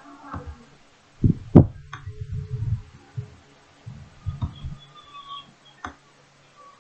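Dull, low thumps in two clusters and a few sharp clicks from handling at a computer desk, over a faint steady hum.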